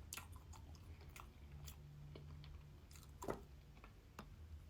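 Quiet, close-up mouth sounds of someone chewing cake and cream: scattered small wet clicks and smacks, with one louder click about three seconds in.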